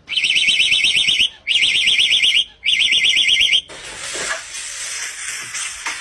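Warbling car-alarm siren sound, given in three bursts of about a second each with short breaks between them. A softer rushing noise follows.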